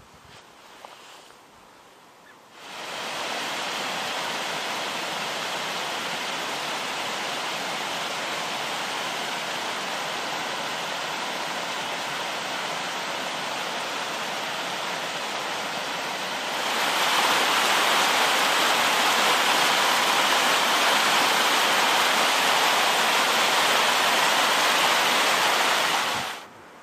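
A steady rushing of water that starts abruptly, grows louder about two-thirds of the way in, and cuts off suddenly near the end.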